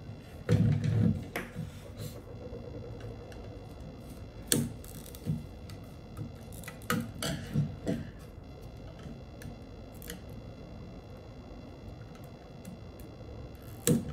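Plastic parts of a Dyson V8 cyclone and bin assembly clicking and knocking as they are handled and pried apart with a screwdriver. There is a loud cluster of knocks about half a second in and another group about seven to eight seconds in.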